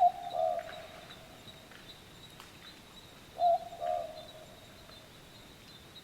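A bird gives the same cooing two-part call twice, about three and a half seconds apart: each a sharp note followed by a slightly falling, wavering tail.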